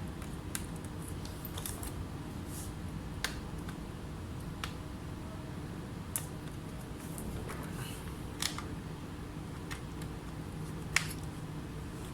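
Scattered small sharp clicks and taps, about a dozen at irregular intervals, over a steady low hum; the sharpest click comes near the end.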